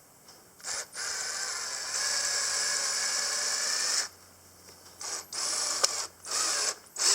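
Power drill driving screws into a baler's plastic PTO shield: one run of about three seconds with a steady whine, then several short trigger bursts near the end.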